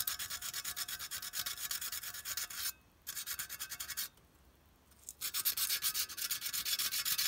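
Coarse sandpaper rubbed by hand in rapid, even strokes over the painted metal body of a clockwork O gauge locomotive, taking the old paint off. The sanding stops briefly twice, the second break lasting about a second.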